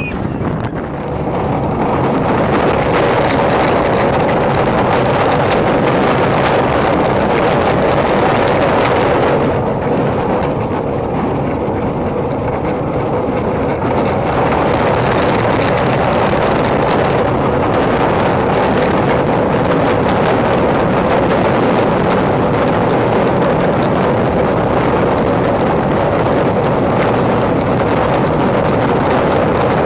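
Wind rushing over an on-ride microphone and the rumble of a steel roller coaster train running along its track. It swells over the first couple of seconds as the train drops, then stays loud and steady.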